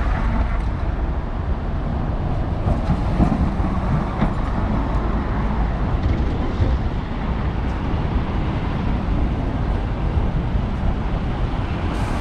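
Roadside city traffic: a steady rumble of passing vehicles' engines and tyres.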